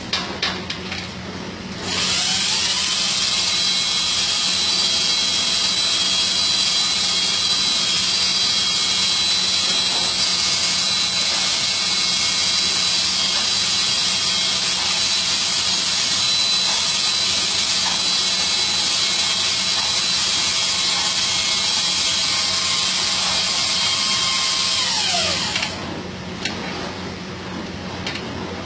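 Electric motor driving a telescopic material lift as it raises an air-conditioner outdoor unit. It spins up with a rising whine about two seconds in, runs steadily, and winds down with a falling pitch near the end.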